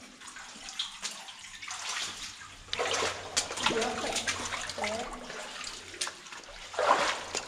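Feet wading through water in a flooded mine tunnel, splashing and sloshing irregularly with each step, busier from about three seconds in.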